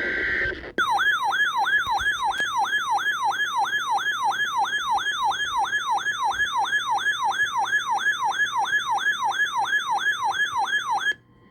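Electronic siren rapidly sweeping up and down, about two and a half sweeps a second, for about ten seconds, then cutting off sharply. It is preceded in the first half second by a short buzzy data burst, of the kind that opens a weather radio alert.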